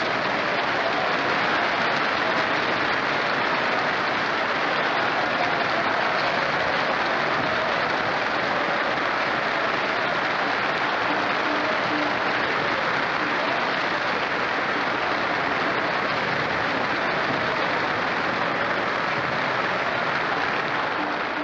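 Theatre audience applauding steadily, a dense even clapping.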